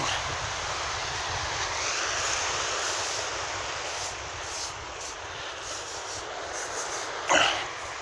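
Steady rush of sea wind and surf on the phone's microphone, with faint scratching as letters are traced in the sand, and a short louder sound near the end.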